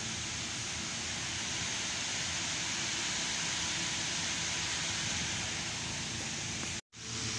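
Steady whooshing, fan-like mechanical noise with a low hum beneath it, broken off for an instant near the end.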